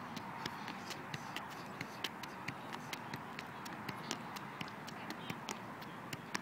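A soccer ball being juggled: sharp taps of foot on ball in a steady run, about two to three a second.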